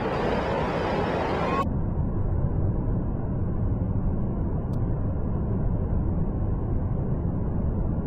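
Steady roar of heavy surf mixed with wind buffeting the microphone, a deep rumble throughout. About a second and a half in, the higher part of the sound drops away abruptly, leaving a duller, more muffled rumble.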